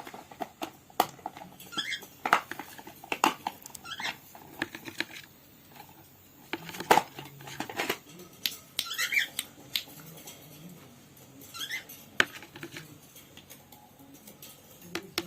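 Cockatiel pecking at food: irregular sharp clicks of its beak, with a few short rising chirps.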